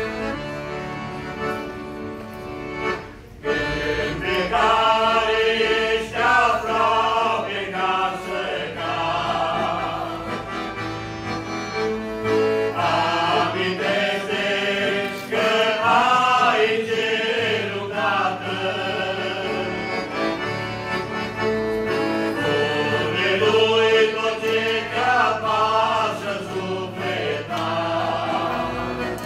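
A group of men singing a song together with accordion accompaniment. The accordion plays alone at first, and the voices come in about four seconds in.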